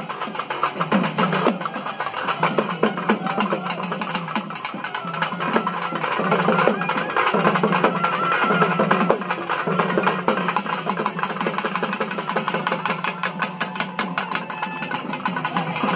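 Fast, continuous drumming on barrel drums slung at the waist and beaten with sticks, the rhythm driving a kavadi dance.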